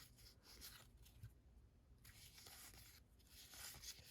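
Faint rustling and sliding of baseball cards handled one after another in the hand, paper-thin card stock brushing against card stock.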